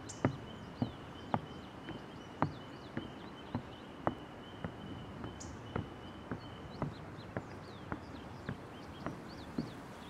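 Footsteps of a hiker walking across a wooden-decked footbridge, about two hollow steps a second. Birds chirp in the background, and a steady high tone stops about seven seconds in.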